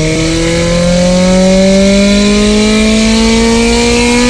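A K-swapped Honda Civic's K-series four-cylinder engine pulling hard under full acceleration, its revs climbing steadily through one gear.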